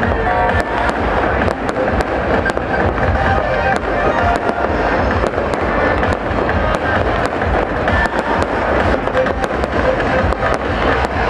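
Aerial fireworks going off in a rapid, continuous barrage of bangs and crackles, with music playing underneath.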